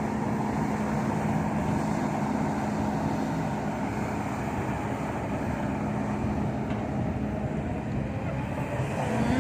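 Heavy diesel engine of a dump truck or excavator running steadily, a constant low hum over a rumbling noise.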